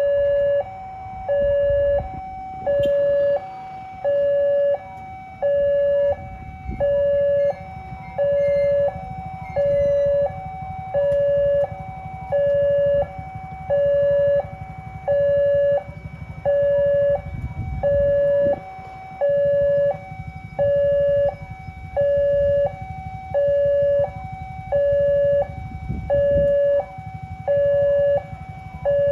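Railway level-crossing warning alarm sounding a steady two-tone electronic signal. A lower note, the louder one, alternates with a higher note, the pair repeating about every 1.3 seconds, warning that a train is approaching and the crossing is closed. A steady low rumble runs underneath.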